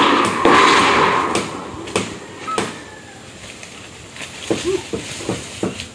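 Building work on a wooden roof frame with corrugated iron sheets: a rough scraping for about the first second and a half, then scattered sharp knocks.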